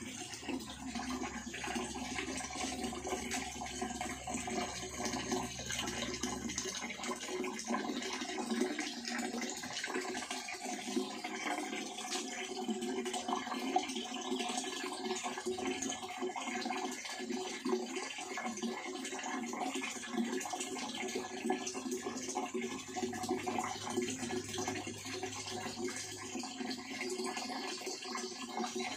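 Steady rush of running water in an agarwood-oil distillation rig, with a low hum underneath that stops about six seconds in.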